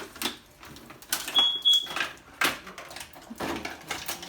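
Plastic clicks and knocks of a toy display case being handled and pried at while someone struggles to open it, with a brief high squeak about a second and a half in.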